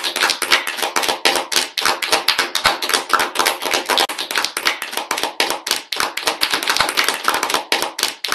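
Applause: many people clapping at once, a dense patter of sharp claps that starts suddenly at full strength.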